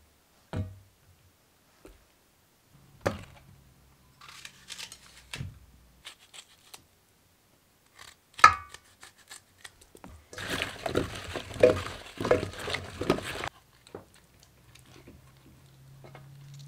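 Hands preparing a raw duck in an enamel tray: a few soft knocks and a sharp click as apple pieces are handled and set down. About ten seconds in come three seconds of wet squishing and crinkling as apple is pushed into the duck's cavity.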